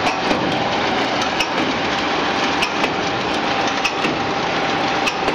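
French fry production line machinery running: a steady whirring noise with a thin, even whine and scattered light clicks and rattles, from the mesh-belt conveyor's geared motor and the line's blowers.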